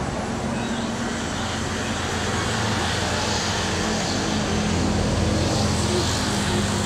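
Street traffic noise: a steady low engine hum, a little louder through the middle, over a constant wash of road noise.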